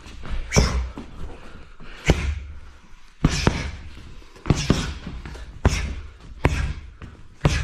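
Boxing-glove strikes landing on Muay Thai pads: a run of sharp slaps about once a second, several coming in quick pairs.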